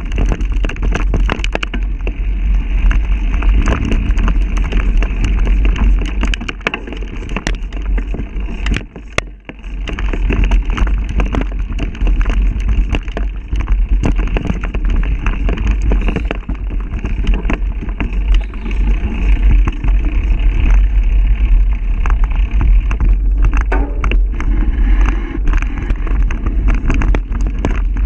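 Wind buffeting the microphone as a mountain bike is ridden fast down a dirt trail, with a steady low rumble and constant rattling and knocking from the bike over roots and bumps. The noise drops away briefly about nine seconds in.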